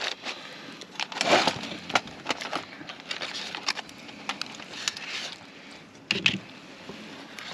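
A fork and utensils scraping and clicking in a foil-lined aluminium pan as grilled jalapeños are served out, with the foil crinkling. The crinkling is densest about a second in.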